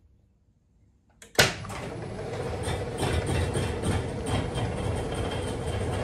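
Genie Excelerator screw-drive garage door opener starting suddenly about a second in, then running steadily with a constant hum as it drives the door on its slow first run: the learning mode after being powered back on.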